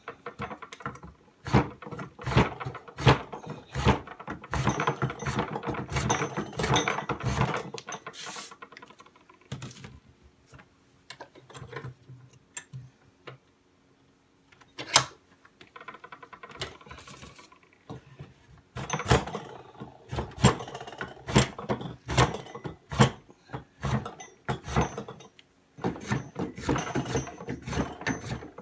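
Spokeshave shaving a wooden mallet handle held in a bench vise: quick runs of short scraping strokes, a pause about a third of the way in with a few light knocks and a sharp click, then more strokes.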